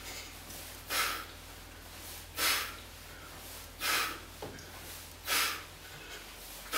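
A man's forceful breaths: four short, sharp exhales about a second and a half apart, one with each hanging knee tuck, the breathing of a man under strain.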